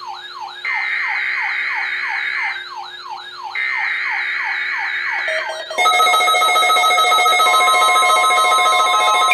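NOAA Weather Radio SAME header data bursts, the buzzing digital tones that open a Required Weekly Test, sound twice. Under them one weather radio receiver's warbling siren alert sweeps up and down about three times a second. About six seconds in, several more weather radio receivers set off their alert tones and beeps together, and the sound gets louder.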